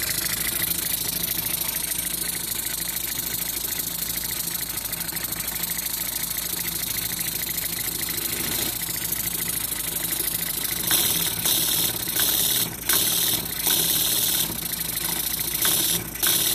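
Model horizontal steam engine with a flyball governor running fast and steady, a rapid rattling beat. In the second half several bursts of loud hiss come and go.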